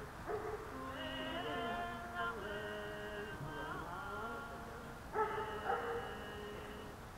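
Several voices in long, held, overlapping tones that slide up and down in pitch, with a fresh swell of voices about five seconds in.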